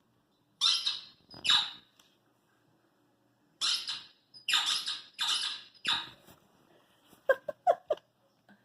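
Short squeaks coming in separate bursts: two about a second in, a run of four from about three and a half to six seconds in, and a few quicker, sharper ones near the end.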